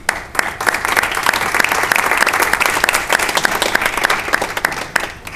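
An audience applauding, with many sharp, closely spaced claps and some very near ones standing out; the applause dies away near the end.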